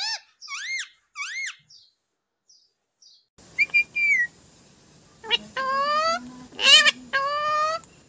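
Indian ringneck parakeet calling: three quick rising-and-falling calls in the first second and a half, a pause, then from about halfway a run of longer, drawn-out calls.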